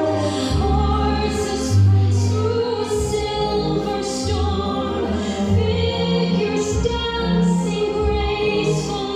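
Background music: a slow piece with operatic, choir-like singing over held low bass notes.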